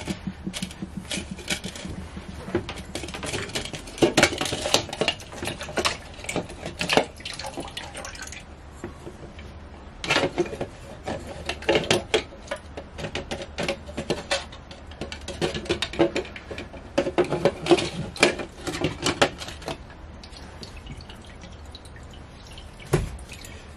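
Irregular metal clicks and clinks from a screwdriver and hose clamp as the raw-water hose is loosened and worked off a marine diesel's raw-water pump. Seawater left in the hose drips into a plastic catch container.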